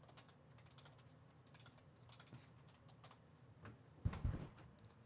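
Faint, irregular light clicks and taps, with a single dull thump about four seconds in that is the loudest sound.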